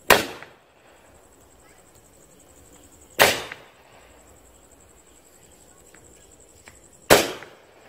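Shots of a Cock Brand Tri Color Angels multi-shot sky-shot firework cake: three sharp bangs, each dying away quickly, one at the very start, one about three seconds in and one about seven seconds in.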